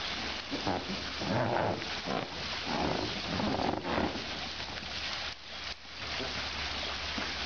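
Baby elephants splashing in a shallow inflatable paddling pool while a garden hose sprays water into it, a steady rain-like hiss with irregular louder splashes; there is a brief lull about five and a half seconds in.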